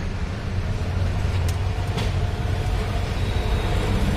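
Steady low hum of a running motor-vehicle engine, with two faint clicks near the middle.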